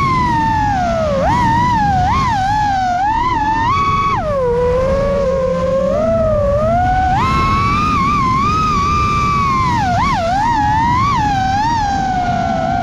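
Brushless motors of an FPV racing drone (BH Avenger 2507 1500kv) spinning 6-inch DAL 6048 props: a loud whine whose pitch swoops up and down with the throttle over a steady low rush of air. About four seconds in the pitch drops and stays low for about three seconds before climbing back.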